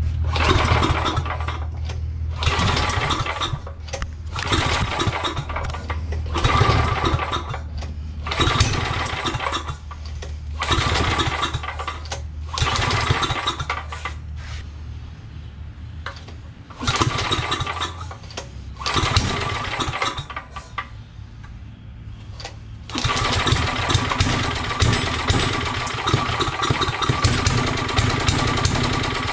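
A portable generator's 10 hp small engine, running on a newly fitted carburetor kit, starts and runs unevenly, surging up and dropping back every second or two. About 23 seconds in it settles into steady running.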